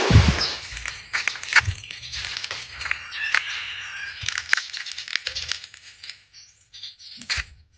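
Handling noise: a loud rustle at the start, then crackling with many sharp clicks and taps that thin out over the last two seconds.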